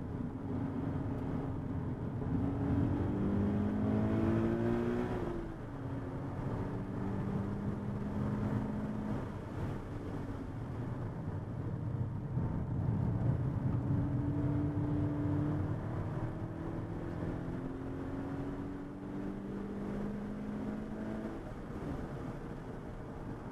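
A car's engine heard from inside the cabin at speed on a race track, over steady tyre and wind noise. Its pitch climbs for the first five seconds, drops sharply, then climbs again twice as the car accelerates out of corners.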